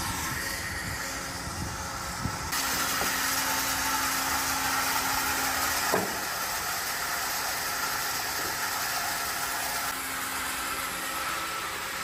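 A forklift runs briefly; then, from about two and a half seconds in, a large industrial horizontal bandsaw cutting 6061 aluminium billet gives a steady hiss over a low hum. One sharp knock comes about halfway through.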